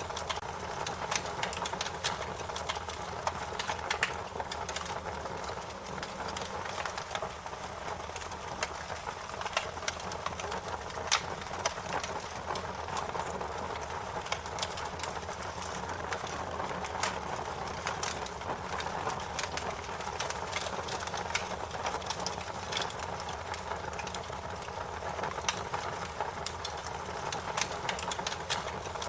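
Wood fire crackling, with frequent irregular sharp pops and snaps over a steady hiss.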